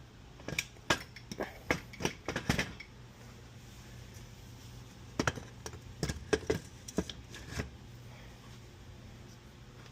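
Scattered metallic clanks and knocks in two bursts, with a pause between, as a dirt bike's engine is worked loose and shifted inside its frame, over a faint steady hum.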